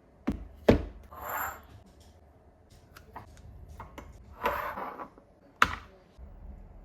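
Kitchen handling sounds during food prep: three sharp knocks of utensils or containers, with two short scraping noises and a few light clicks in between.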